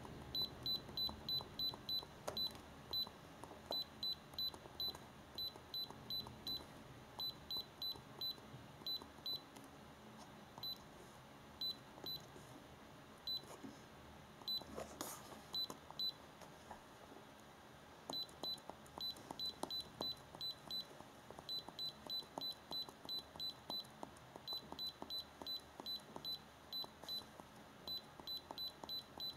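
iCarsoft i930 handheld diagnostic scanner beeping at each key press as its menus are scrolled: short high beeps in quick runs of about three a second, with a pause of a few seconds about halfway.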